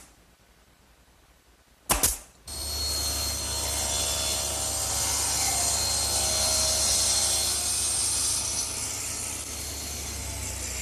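A sharp snap about two seconds in, then a panel saw's circular blade running and cutting through a large sheet of wood: a steady hum with a loud hiss, easing slightly near the end.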